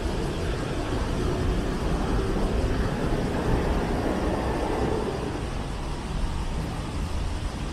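Steady city road traffic: car and bus engines and tyres running past, with one vehicle swelling slightly louder and fading around the middle.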